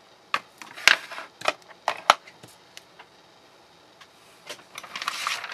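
Sharp taps and clicks of cardstock and craft supplies being handled and set down on a craft mat, two louder ones about a second and two seconds in. A short papery rustle comes near the end.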